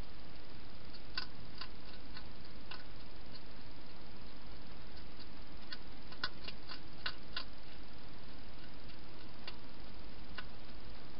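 Faint, irregular clicks of a wild hedgehog eating from a bowl, bunched in a quick run about six to seven and a half seconds in, over the steady hiss of the camera's microphone.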